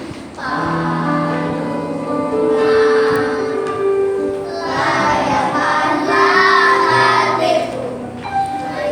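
A group of children singing a Christian song together over a steady instrumental backing.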